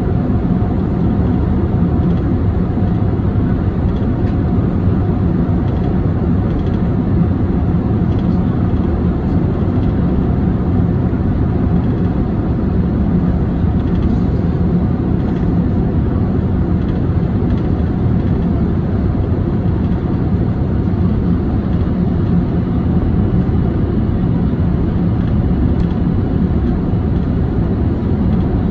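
Steady roar of engine and airflow noise heard from inside the cabin of a Boeing 747-400 on its descent, with the landing gear down, a deep even rumble that does not change.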